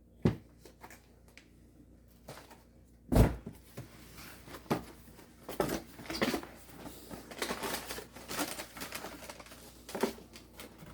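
Two knocks, the louder one about three seconds in, as items are put down, then plastic packaging crinkling and rustling as a parcel is opened.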